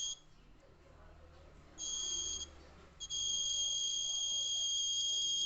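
Buzzer of a homemade LDR laser security alarm giving a steady high-pitched beep in irregular bursts: a brief one at the start, another about two seconds in, then a longer one from about three seconds in. The buzzer sounds whenever the laser beam on the light sensor is broken.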